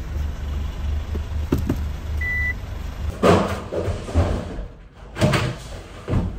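Low steady rumble of a moving car heard inside its cabin, with one short high beep about two seconds in. From about three seconds in come loud thumps and rustling as things are carried across an empty room and set down on the floor, three louder knocks in all.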